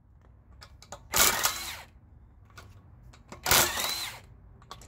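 Ingersoll Rand 20-volt brushless cordless impact wrench run in two short bursts, each under a second, about a second in and again about three and a half seconds in, hammering on the wheel's lug bolts to loosen them. A thin motor whine glides through each burst.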